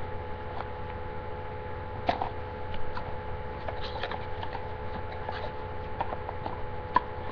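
Light rustling and scattered small taps of a cardboard perfume box being handled and opened, over a steady electrical hum.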